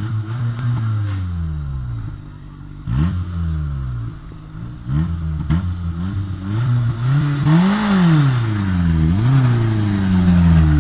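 Small off-road 4x4's engine revving in repeated bursts under load as it climbs a dirt slope, the pitch rising and falling with each throttle blip and peaking in one longer rev about three quarters of the way through, with a few knocks and clatters from the vehicle.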